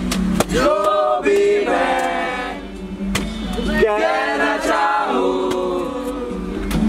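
Several voices singing together, a sustained, wavering melodic line with little sign of instruments.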